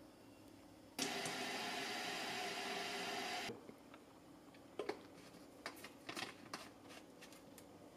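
Water running from a kitchen tap into a plastic spray bottle for about two and a half seconds, then cutting off. This is followed by several short plastic clicks and rattles as the trigger sprayer head is fitted and screwed onto the bottle.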